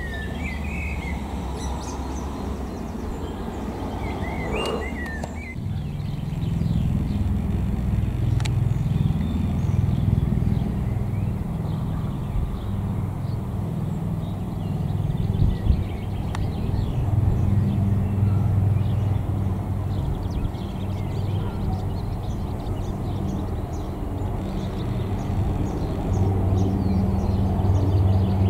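Small birds chirping in the first few seconds. Then, from about five seconds in, the low steady drone of a Sikorsky S-92 search and rescue helicopter flying past, its rotor and turbines swelling and easing.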